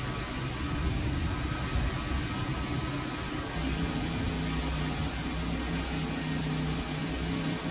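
An engine idling steadily: an even low hum with a few steady tones and no breaks.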